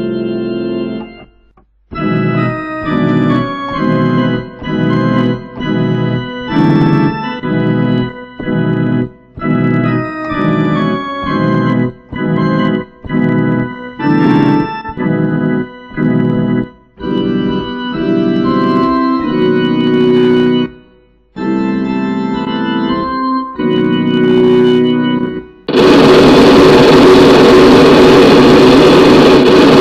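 Organ-like keyboard music. A held chord breaks off, then short detached chords play about two a second, giving way to longer held chords. Near the end a loud, noisy wash with a chord inside it takes over.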